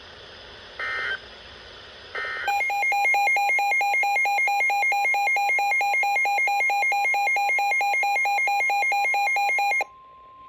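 Three short screeching bursts of EAS SAME digital data, then the steady single-pitch EAS/weather-radio attention tone of about 1 kHz. Over the tone a loud pulsing electronic alarm sounds about four times a second and cuts off sharply near the end, leaving the steady tone alone.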